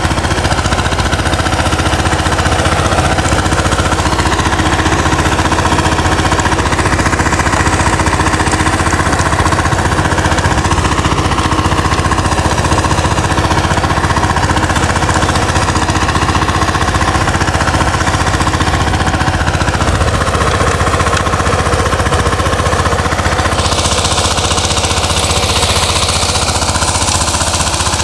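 VST Shakti 130 DI power tiller's single-cylinder diesel engine running steadily with a fast, even knock, its rotary tines churning soil. A brighter hiss joins near the end.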